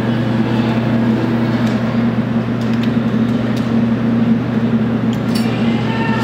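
Claw machine running: a steady motor hum over store background noise while the claw is worked, with a few faint clicks.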